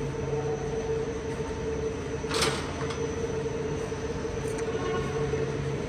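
Large dairy-barn circulation fans running with a steady hum. There is a short clatter about two and a half seconds in.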